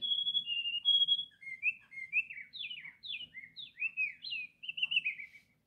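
Recorded birdsong played through the Tribit Home BTS50 clock speaker as its built-in bird-sounds relaxation track: a steady run of chirps and short falling whistled notes.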